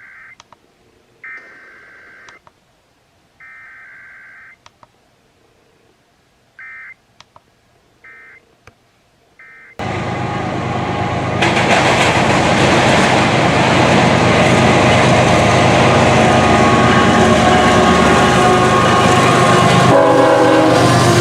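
Emergency Alert System SAME data bursts: short shrill digital screeches, three of about a second each, then three shorter ones, the coded header and end-of-message signals of an EAS test. About ten seconds in, loud broadcast audio with many sustained tones cuts in suddenly.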